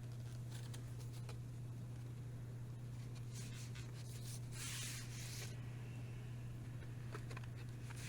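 Record packaging being handled by hand: faint taps, then two short sliding, rustling sounds about halfway through. A steady low hum runs under it all.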